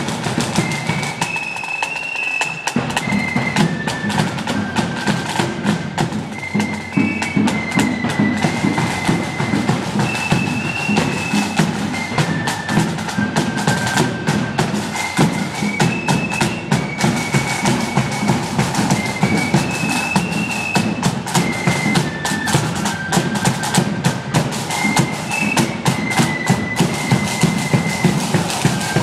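Marching flute band playing: a high flute tune that repeats over snare and bass drums.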